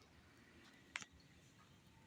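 Near silence, with one faint, short click about a second in.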